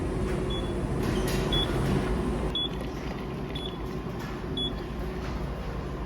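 Cup-type coffee vending machine dispensing hot coffee: a steady machine hum with a short high beep about once a second, five times, the beeps stopping near the end.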